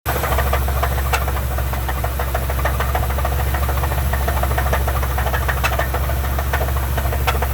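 Truck engine running with a rapid, steady knocking. It is a rod knock, which the owner takes for a connecting rod that has let go, or something else broken inside the engine.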